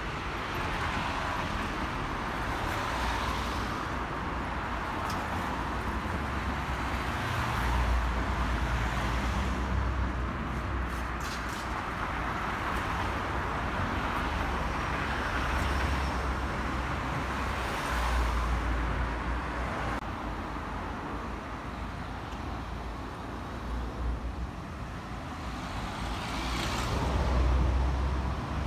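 Street traffic: cars driving past, the rumble swelling and fading as several go by, loudest near the end.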